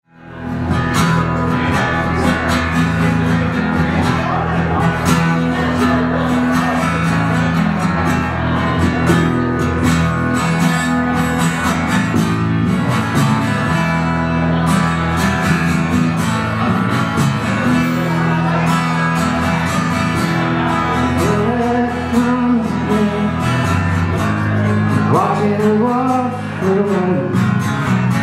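Live acoustic guitar strumming a steady song introduction over sustained low notes, with a voice starting to sing near the end.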